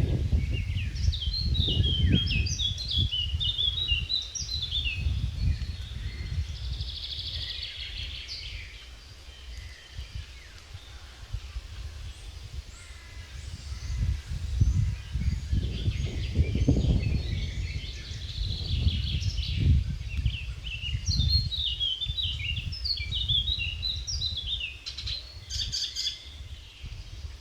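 Small birds singing in quick chirping phrases, in two spells, one near the start and one about two-thirds through, over a continual low rumbling noise.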